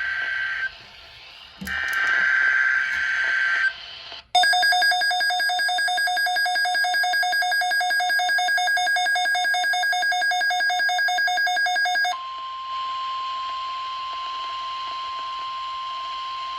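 NOAA Weather Radio alert tones. First the end of the SAME digital header, two buzzy screeching data bursts. Then about eight seconds of a rapidly pulsing electronic alarm, and from about twelve seconds in a steady single-pitch 1050 Hz warning alarm tone.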